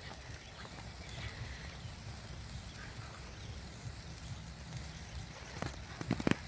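Wind rumbling on the microphone, then near the end a quick cluster of four or five sharp pops from a small novelty firework.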